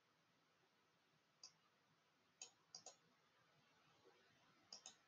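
Near silence broken by about six faint computer mouse clicks, some of them in quick pairs.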